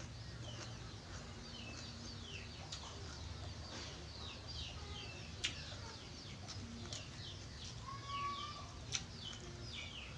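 Birds chirping in the background: many short, falling peeps repeating all through, with a few sharp clicks here and there.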